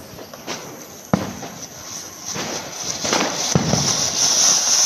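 Several sharp firecracker bangs, then from about three seconds in a ground fountain firework (flower pot) hissing steadily and growing louder as it sprays sparks.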